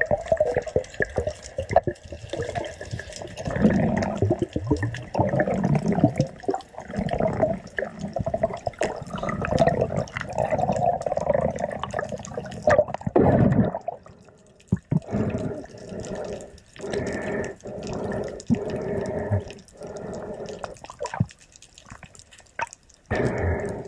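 Muffled water sloshing and bubbling around an underwater camera housing as a diver swims, with many small clicks and knocks. It drops away briefly about halfway through.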